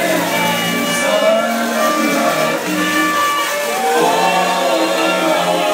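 A live dance band playing a slow number with long held notes, some singing mixed in.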